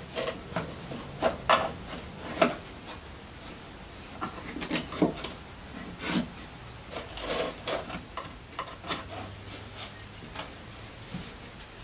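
Hands pressing and rubbing marine carpet down onto a glued plywood console, irregular scuffs of the carpet with light knocks of the wooden frame.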